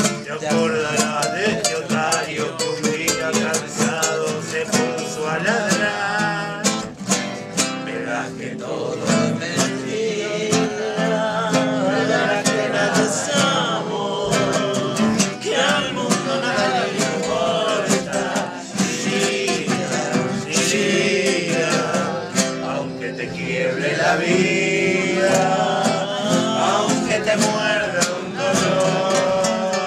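Nylon-string classical guitar strumming and plucking a tango accompaniment while two men's voices sing over it.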